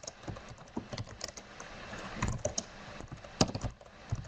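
Typing on a computer keyboard: irregular key clicks, with one louder keystroke about three and a half seconds in.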